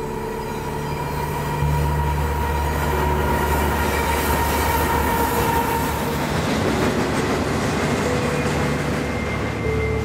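Canadian Pacific freight train rolling past: a steady low rumble from the locomotive and cars, stepping up louder about two seconds in, with long steady squealing tones from the wheels on the curve.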